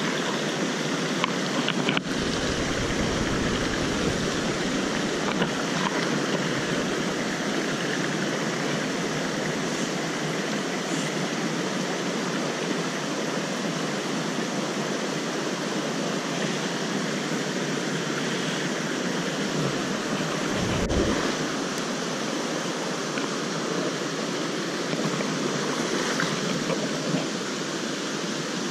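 Mountain stream flowing over rocks: a steady rush of water.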